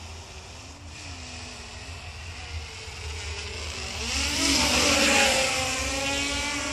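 Y6 multirotor on a DJI F550 frame, six brushless motors in coaxial pairs swinging 10-inch propellers, buzzing in flight. The motor whine rises and falls in pitch with the throttle. It swells loudest about four to five seconds in as the drone passes low and close, then drops in pitch near the end.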